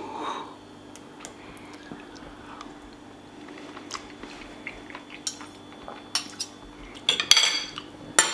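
Fork and knife clinking and scraping against a plate: a few light, scattered taps, then a quicker run of louder clinks and scrapes near the end.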